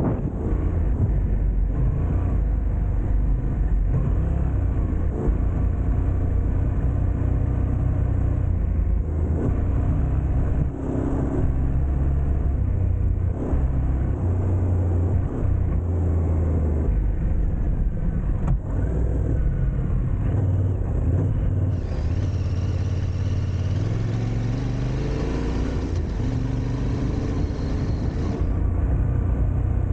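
Yamaha Ténéré 700's parallel-twin engine running as the motorcycle rides an off-road track, its pitch changing with the throttle and rising as it accelerates a little over two-thirds of the way in.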